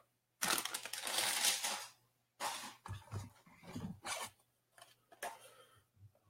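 Blind-box packaging being torn open: a long noisy rip lasting about a second and a half, then several shorter crinkly rustles as the packaging is handled.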